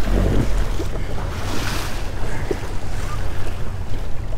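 Choppy lake waves slapping and splashing against the bow of a Tracker 190TX aluminum bass boat, with a steady deep rumble of wind buffeting the microphone. A surge of splashing comes about a second and a half in.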